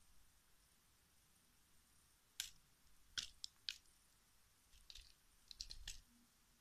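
A cat biting and chewing a plastic selfie-stick phone clamp: a few sharp clicks and crunches of teeth on plastic, one about two seconds in, three in quick succession just after, and a cluster near the end.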